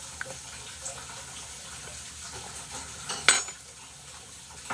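Utensils clicking against plastic takeout food containers during a meal, with one sharper clack a little over three seconds in, over a steady background hiss.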